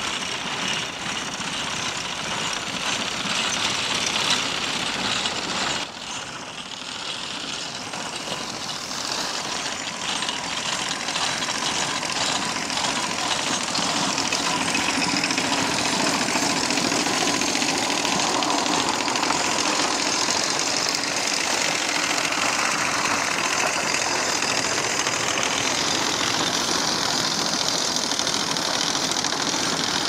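Horse-drawn sickle bar mower running through thick hay, its reciprocating knife giving a fast, steady clatter that grows louder as the team comes closer.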